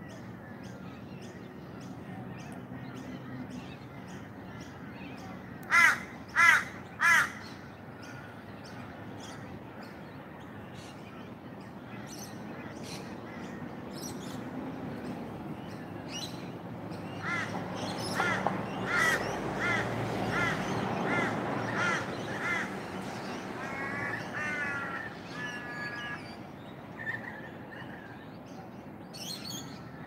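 Crows cawing: three loud caws in quick succession about six seconds in, then a longer run of quieter caws about two a second past the middle. Small birds chirp faintly throughout.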